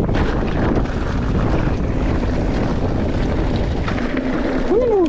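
Wind buffeting the camera microphone with rumbling tire noise as a mountain bike rides a dirt jump line at speed. Near the end there is a short tone that rises and then falls.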